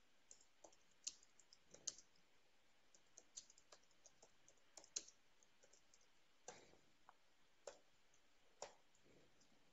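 Computer keyboard typing: irregular, faint key clicks with a few louder keystrokes.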